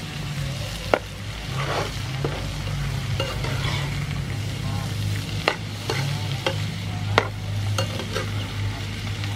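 Shrimp stir-frying and sizzling in a nonstick frying pan as a metal spatula stirs and scrapes them. Three sharp clacks of the spatula against the pan come about a second in, past the middle, and near the end.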